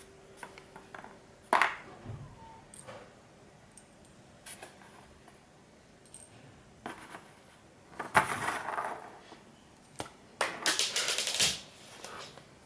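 Small metal parts of a dismantled diesel injector clicking against each other and being set down on cardboard, with a sharp click about a second and a half in. Near the end come two longer stretches of scraping and rustling as the parts and cardboard are handled.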